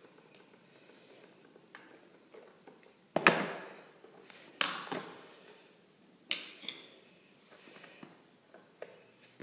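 Handling clatter as an old electrical receptacle is worked free of its wires with a screwdriver and put down: a sharp clack about three seconds in, then two smaller clacks, with faint small clicks between.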